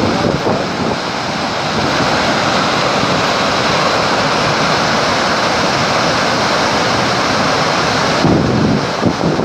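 Muddy floodwater of a flash flood rushing and pouring over a drop into a desert gorge: a loud, steady roar. Near the end, wind gusts buffet the microphone.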